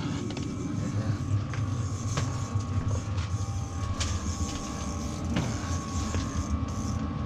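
Steady low mechanical drone with a faint, steady high tone above it, and a few light clicks and taps.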